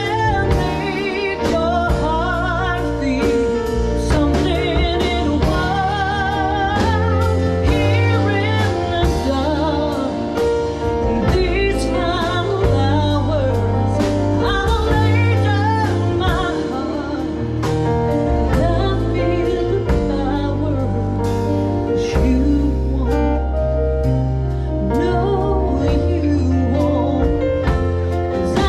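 A woman singing a slow song with strong vibrato, live, over sustained instrumental accompaniment with a steady bass line.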